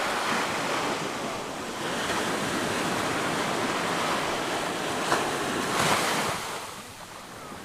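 Small sea waves breaking and washing up a sandy beach, with wind on the microphone. The surf swells loudest about six seconds in, then eases.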